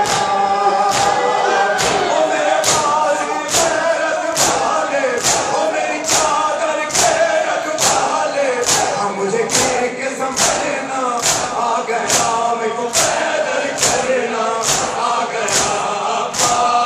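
A large crowd of men chanting a nauha in unison while beating their chests together in matam. The hand-on-chest slaps come sharp and regular, a little more than one a second, under the sung chorus.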